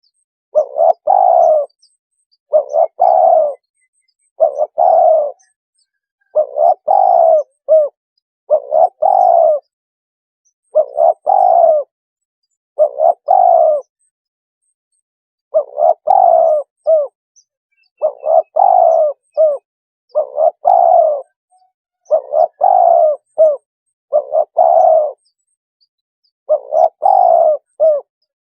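Spotted dove lure call: loud, clean cooing phrases about a second long, repeated about every two seconds, with a longer pause around the middle.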